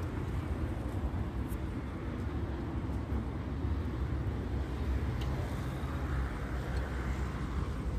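Steady low rumble of outdoor road and wind noise picked up by a moving phone microphone, with no clear separate events.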